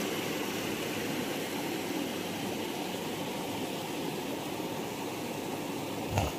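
Steady rushing of flowing river water, with a brief low thump near the end.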